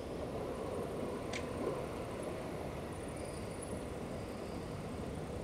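Steady low outdoor background rumble, with a single short click about a second and a half in.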